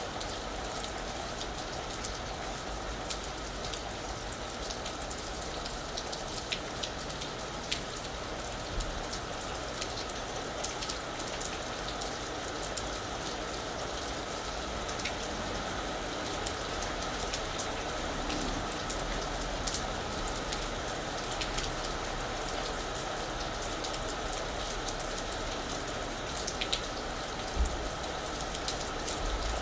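Steady rain falling on a roof, an even hiss with many separate drops ticking and pattering against the surface.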